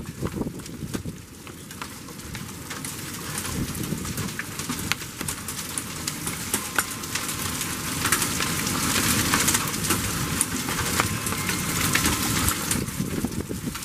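Torrential thunderstorm rain pouring down, with bigger hailstones striking hard surfaces as many sharp ticks through the hiss of the downpour. The downpour grows louder about eight seconds in.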